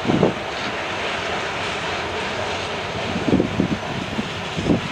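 Freight cars of a manifest train rolling along the track, a steady rumble and rush of wheels on rail, with a few brief low bumps just after the start and again from about three seconds in.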